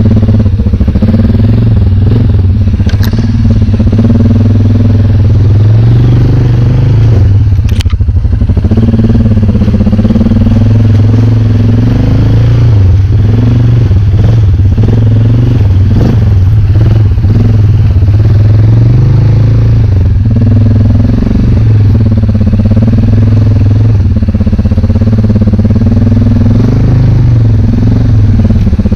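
ATV engine running under constant throttle changes, its pitch rising and falling as the quad picks its way over rough, muddy trail. Two sharp knocks about 3 and 8 seconds in.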